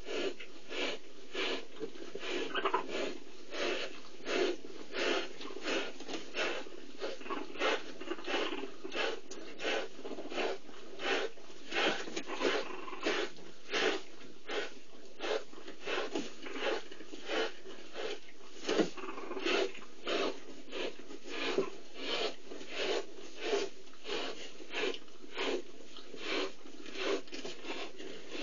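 Cheetahs purring gently, a breathy rasp that pulses about once a second.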